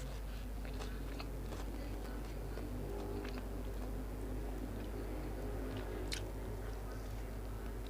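A person chewing food close to the microphone, with scattered small clicks of biting and mouth sounds over a steady low hum.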